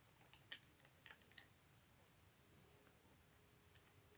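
Near silence with a few faint clicks of small metal parts being handled as a nut is screwed on to fit a drill into its holder.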